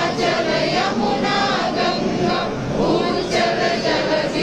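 A crowd of voices chanting or singing together in unison, with the hubbub of the gathering beneath.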